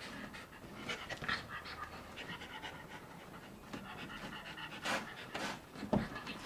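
A Lakeland terrier panting quickly. Near the end come a few louder tearing noises as the dog pulls at wallpaper with its mouth.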